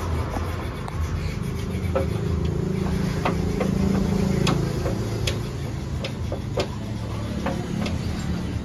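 Honda Civic's four-cylinder engine idling steadily with the air conditioning running, as the system is tested and charged with refrigerant. A few scattered sharp clicks sound over it.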